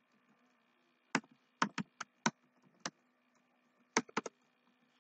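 Computer keyboard being typed on: about nine separate keystrokes in short, uneven runs, one group in the first half and a quick three near the end.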